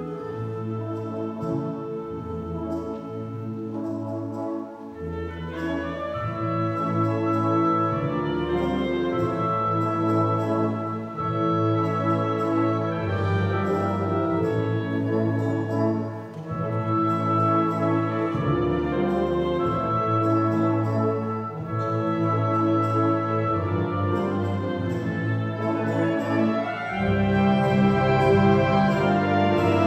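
Concert wind band playing sustained brass and woodwind chords that change every second or two, starting soft, swelling about six seconds in and growing louder again near the end.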